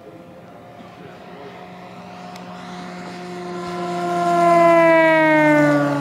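Large electric RC model AT-6 Texan, an Axi motor swinging a 20-inch propeller, making a fast pass: the propeller's whine builds in loudness, peaks about five seconds in, then drops in pitch as the plane goes by.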